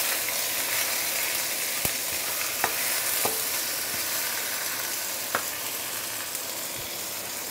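Turmeric-coated fish frying in oil on banana leaves in a non-stick wok, a steady sizzle, with about four sharp taps of a steel spatula against the wok as the fish is flipped.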